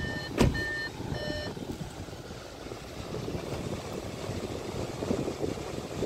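An Audi's electronic warning chime beeping at one pitch about twice a second, a few beeps that stop about a second and a half in, with a single sharp click among them. Afterwards the steady low hum of the car's running engine and air-conditioning blower.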